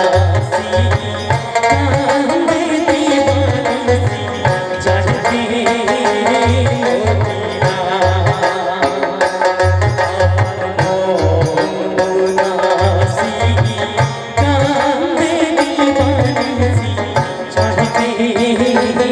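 Live Indian folk music played through a loudspeaker: a hand drum beats a steady rhythm under a keyboard melody and a man's singing.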